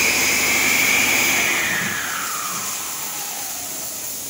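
2009 Cummins ISL 8.9-litre six-cylinder diesel engine on a test run, winding down: a high whine falls steadily in pitch over about two seconds as the engine sound fades, leaving a steady hiss.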